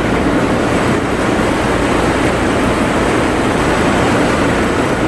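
A steady, loud noise without pitch or breaks, heaviest in the low range, like wind on the microphone.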